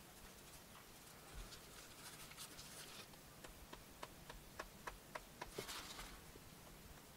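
Soft scraping and rustling of leather pieces being handled, then a run of small sharp ticks, about four a second, as a plastic spatula spreads glue along the leather's edge.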